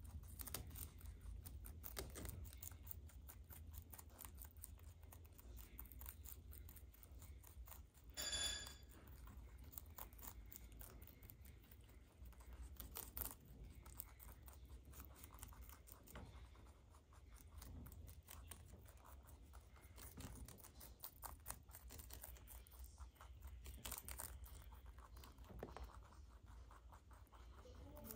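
Two baby rabbits chewing cabbage leaves: faint, quick crunching and nibbling clicks throughout, with a brief high squeak about eight seconds in.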